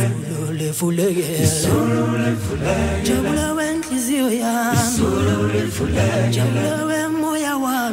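Male choir singing unaccompanied in Zulu, with several voice parts in harmony over a low bass line and a long held chord near the end.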